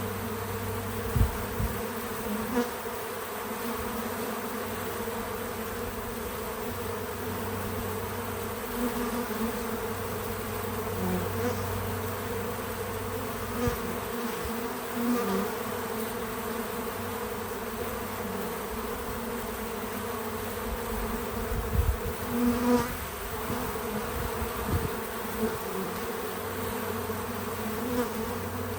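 Many bees buzzing together in a steady, continuous hum around a bee feeder, with a few soft low thumps, one near the start and a cluster about three quarters of the way through.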